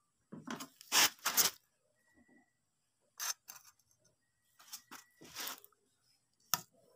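A few short, rough scraping and rubbing noises in separate bursts, the loudest about a second in, then a sharp click near the end.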